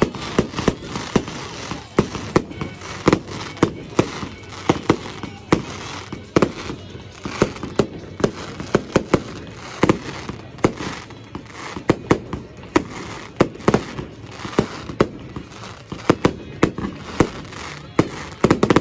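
Aerial fireworks bursting overhead: a rapid, irregular string of sharp bangs, several a second.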